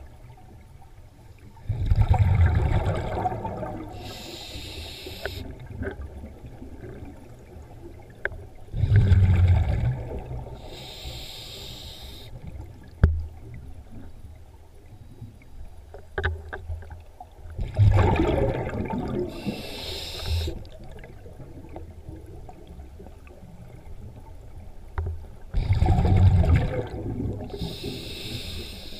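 Scuba diver breathing through a regulator underwater, four breaths about 8 seconds apart: each a loud burble of exhaled bubbles followed by the high hiss of air drawn through the regulator. A few sharp clicks fall between the breaths.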